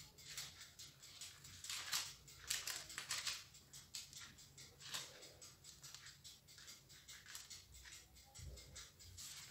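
Faint, irregular crinkling and rustling as a plastic piping bag is squeezed to pipe meringue rosettes onto baking paper, louder around two to three seconds in.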